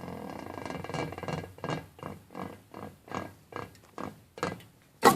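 Footsteps at an even walking pace, about two to three a second, then a single loud bang near the end.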